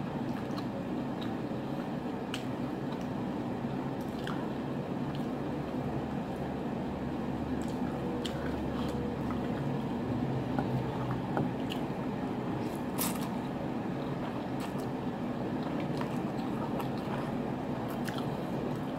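A person eating seafood ramen close to the microphone: wet chewing and biting with scattered small clicks, over a steady low hum.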